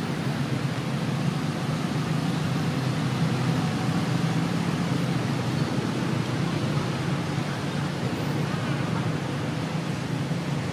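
Steady outdoor background noise: an even hiss over a low hum, with no clear animal calls standing out.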